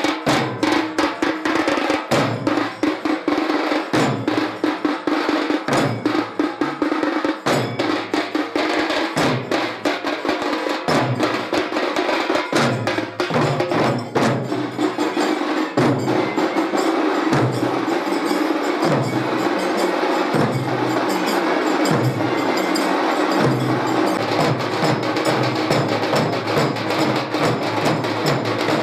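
A troupe of large stick-beaten barrel drums playing together in a fast, driving rhythm: a dense rapid clatter of stick strokes over deeper beats that come about once a second.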